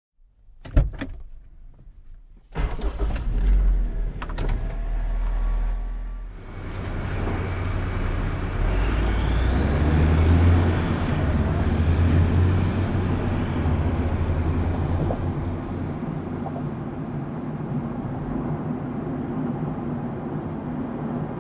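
Car starting and driving away: a sharp knock and a rattle of keys, then the engine catches about two and a half seconds in and runs steadily, with wider road noise building from about six seconds in as the car pulls away.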